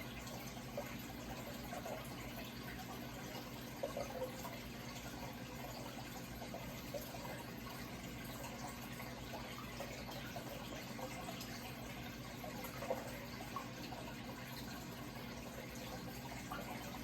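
Running water trickling and splashing steadily, with small bubbling splashes and a steady low hum underneath.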